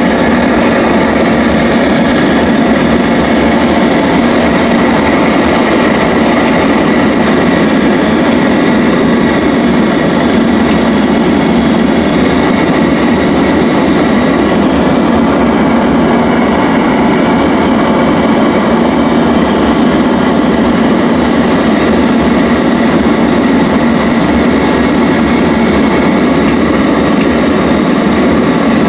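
Small propeller plane's engine and propeller running steadily, heard from inside the cabin, with a thin, steady high whine above the noise.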